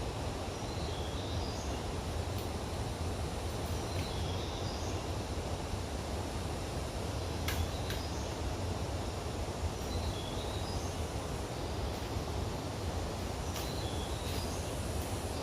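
Steady low outdoor rumble, with a bird repeating a short high phrase four times, a few seconds apart. Two faint clicks sound just past the middle.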